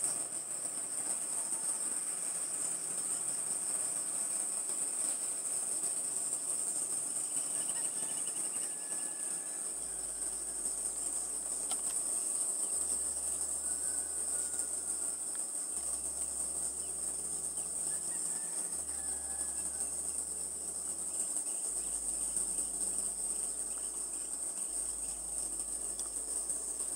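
Insects chirping in a steady high-pitched chorus, with a few faint short chirps now and then.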